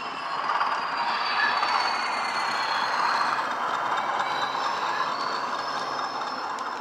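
Sound-fitted OO gauge Class 20/3 model diesel locomotives running past, their DCC sound decoders playing a Class 20 diesel engine sound through small speakers, mixed with the running noise of model container wagons on the track. It gets louder about half a second in as the locomotives come by and then stays steady.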